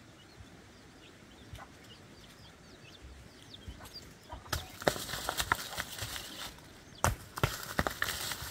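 Footsteps crunching and crackling through dry fallen leaves and loose stones, starting about four and a half seconds in and going on as a run of crackles and knocks.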